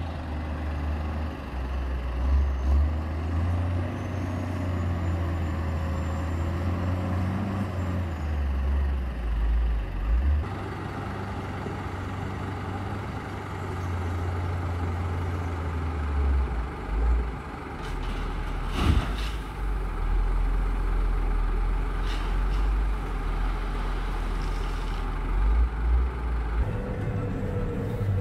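Heavy vehicle or machine engine running and changing speed several times, with a few sharp knocks around nineteen seconds in.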